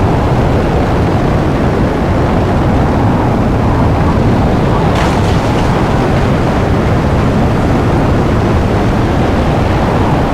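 Designed meteorite sound effect in progress: layered deep rumbling, rocket thruster sounds and wind, running loud and steady. A brief crackle comes about five seconds in.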